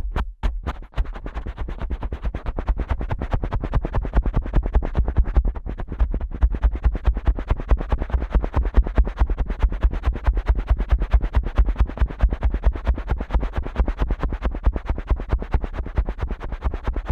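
Fingers rapidly tapping and pressing the ear and tragus of a Neumann KU100 dummy head microphone, each stroke a close, deep thump. About a second in, sharp distinct flicks give way to faster, duller, muffled tapping.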